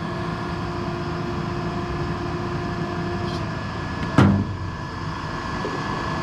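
Steady hum of workshop machinery with a CNC router's gantry motors whining steadily as the machine is jogged aside; the whine stops about three and a half seconds in. A single sharp knock follows a little after four seconds.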